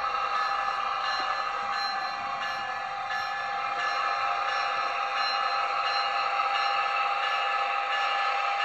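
HO scale Atlas ALP-45DP model locomotive running slowly along its track, giving a steady whine over an even hiss.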